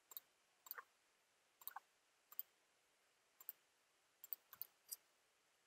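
Faint computer mouse clicks, about eight spread unevenly over several seconds, some as quick double clicks.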